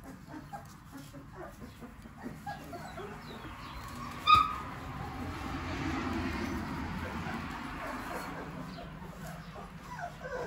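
Three-week-old livestock guardian puppies whimpering faintly, with one short, sharp high-pitched yelp about four seconds in. A soft rushing noise follows it for a few seconds.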